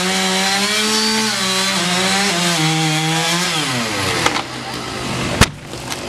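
Two-stroke chainsaw cutting through the base of an oak trunk, its engine note sagging under load and then dropping to a lower idle about four seconds in. Near the end a single sharp thud as the felled trunk hits the ground.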